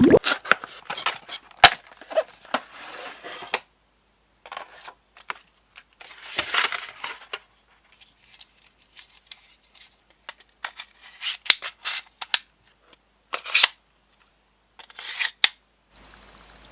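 Packaging being handled and opened by hand: irregular rustling and crinkling with sharp clicks and snaps, in short bursts with pauses between them.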